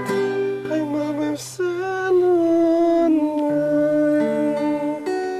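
A song with acoustic guitar strumming, joined about a second and a half in by a voice singing long, held notes.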